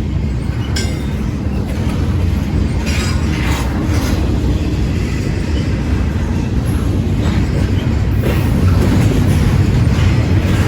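Canadian National freight train rolling past: a steady low rumble of wheels on the rails, with a few brief, faint wheel squeals in the first half.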